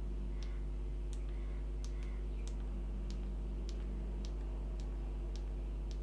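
Light, regular clicks, about three every two seconds, over a steady low hum.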